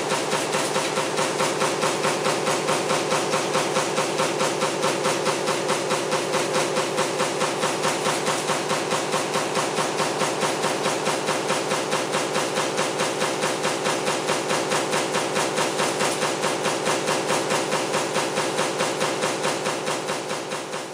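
Power punch press running a fan-motor stamping die, striking in a rapid, even rhythm of several strokes a second and dying away near the end.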